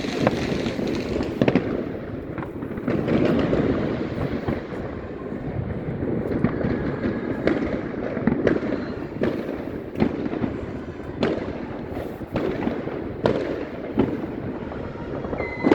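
Fireworks going off all around: a continuous rumble of many distant explosions, with sharp close bangs about once a second. A single whistle, falling slightly in pitch, starts near the end.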